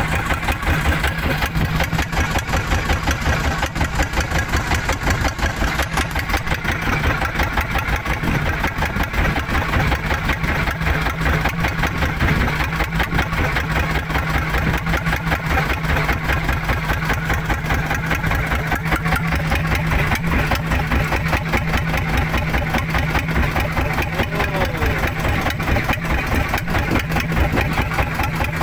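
Fishing boat's engine running steadily at low speed, with a fast, even beat of firing strokes.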